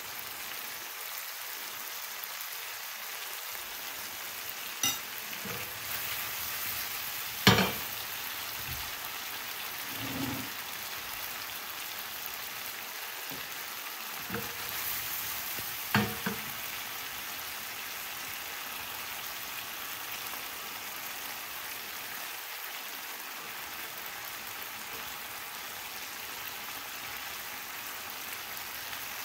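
Marinated chicken pieces sizzling steadily in a frying pan as they are stirred, with a few knocks of the stirring utensil against the pan. The loudest knock comes about seven seconds in.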